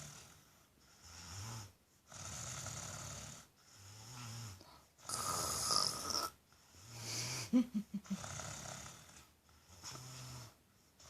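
A three-year-old boy snoring in his sleep: a regular run of snoring breaths, roughly one every one and a half seconds, several with a low rattling hum. There is a short fluttering snort about two-thirds of the way through.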